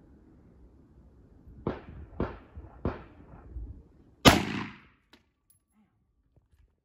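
Gunshots from a Draco AK-pattern pistol: three sharp shots about half a second apart, a fainter one, then a much louder shot with a long ringing tail about four seconds in.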